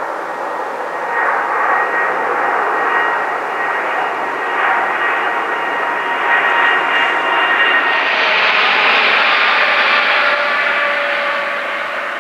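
Boeing 777-300ER's twin GE90 jet engines running at taxi power as the airliner rolls along the ground: a steady rushing noise with a thin fan whine on top. It grows louder and brighter about two thirds of the way through, then eases off near the end.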